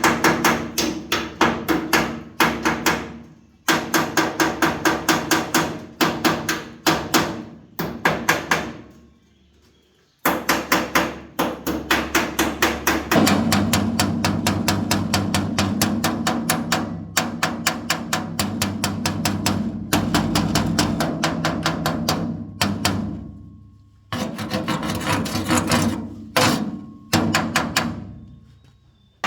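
A hammer striking metal over and over, about four blows a second, in runs of several seconds with short pauses between them; each blow rings on.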